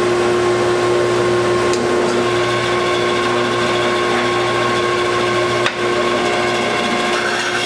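Delta bandsaw running free at speed, a steady motor hum and whine with the blade not yet in the wood. The sound breaks off for an instant about three-quarters of the way through.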